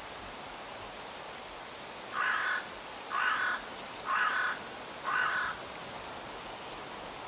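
A crow cawing four times, about a second apart, over a steady hiss.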